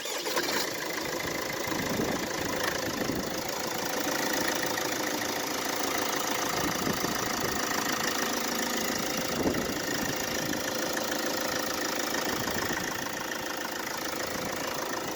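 Mercedes Vito W639's OM646 four-cylinder diesel catching on a cold start and running at a steady idle.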